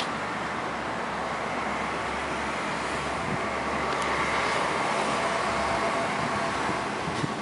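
Steady city street traffic noise, swelling slightly a little past the middle as a vehicle goes by.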